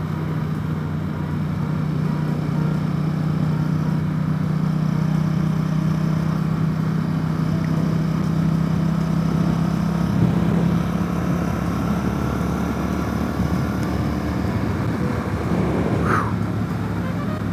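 Motorcycle engine running steadily at highway cruising speed, a steady drone with wind noise over it.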